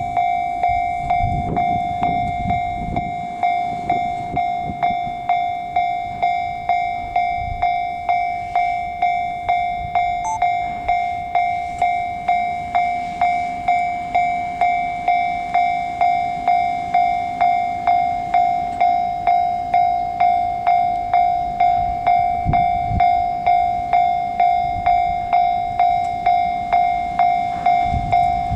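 Japanese level crossing warning bell ringing steadily, about one and a half strikes a second. Low rumbles come and go under it.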